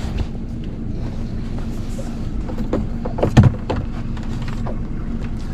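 Boat motor running steadily with a low hum, with a few sharp knocks about three and a half seconds in.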